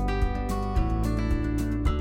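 Background music: guitar-led instrumental with a deep bass line and a steady beat.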